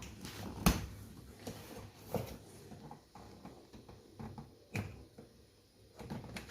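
Cardboard printer box being handled and opened by hand: irregular knocks and scrapes, the loudest a sharp knock about a second in, with further knocks near two and five seconds.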